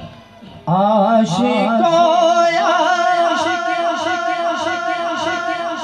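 A man singing unaccompanied into a handheld microphone: under a second in he launches into one long held note, its pitch wavering in ornamented waves, which slowly fades toward the end.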